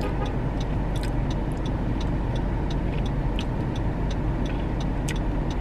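Steady low rumble of a car engine running, heard from inside the car, with faint light ticks scattered over it.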